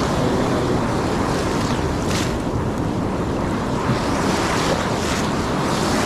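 Ocean surf washing and breaking around the shallows, with wind buffeting the microphone and a few brief brighter swishes of foaming water about two seconds in and near the end.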